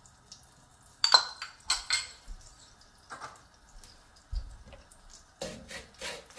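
Sugar tipped from a bowl into a nonstick wok of oil, with a few clinks of the bowl, the sharpest about a second in. From about five seconds in, a wooden spatula stirs and scrapes the sugar in the oil with quick strokes.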